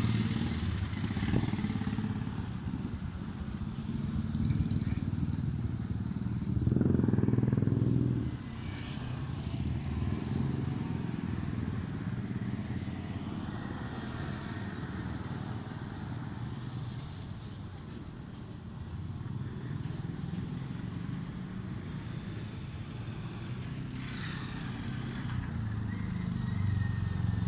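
Street traffic: motor vehicles passing with a steady low engine rumble, one passing closer and louder about seven seconds in and another near the end.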